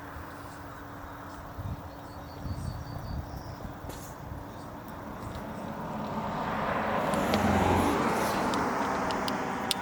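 A car driving past, growing louder to a peak about three-quarters of the way in, its pitch dropping as it goes by, then fading.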